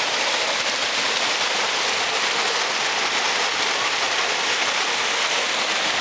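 Shallow river water rushing over rocks, a steady, even hiss with no pauses.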